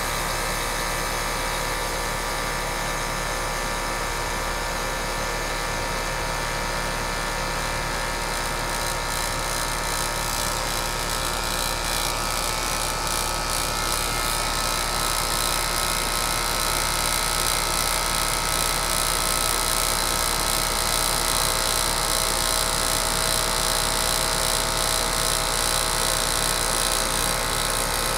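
Air-conditioner condenser unit running steadily, its compressor and fan making a continuous hum and whir, after a failed run capacitor has been replaced. It grows slightly louder about halfway through.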